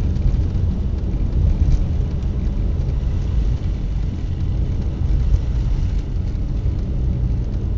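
Steady low road rumble inside a moving car's cabin: the engine and tyres running on a snow-covered highway.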